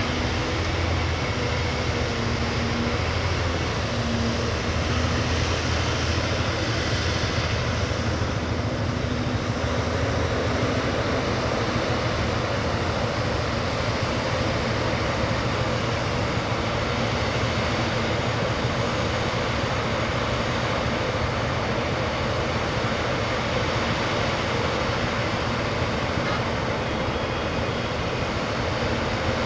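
Backhoe loader's diesel engine running steadily at work.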